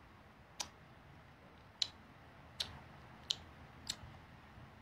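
Five short, sharp mouth clicks spaced well under a second apart, made while tasting a candy.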